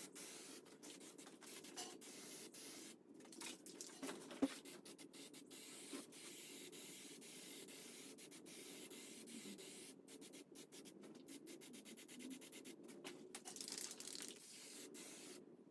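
Faint, scratchy rubbing noise of paint being applied to a car body panel, with many short clicks throughout.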